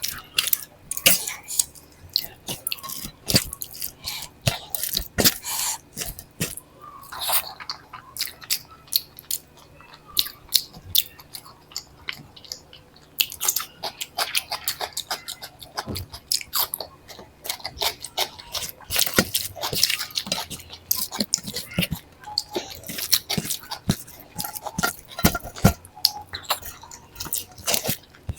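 Close-miked chewing and mouth clicks of a person eating a meal of dal, rice and vegetable bhaji, many short sharp clicks coming irregularly throughout.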